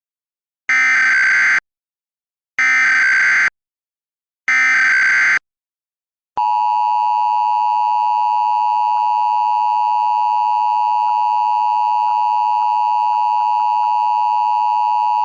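Emergency Alert System header: three short screeching data bursts about two seconds apart, then the steady two-tone EAS attention signal, which starts about six seconds in and holds.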